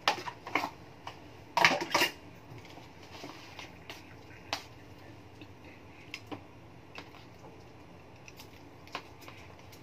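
Chopsticks stirring noodles in a paper cup-noodle cup, clicking and tapping against the cup. There is a cluster of louder knocks at about one and a half to two seconds in, then scattered light taps.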